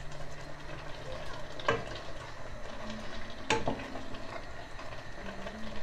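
Wooden spoon stirring a thick, simmering tomato and pepper sauce in a stainless steel pot, with the sauce bubbling and sizzling underneath. The spoon knocks against the pot twice, once a little under two seconds in and again about halfway through.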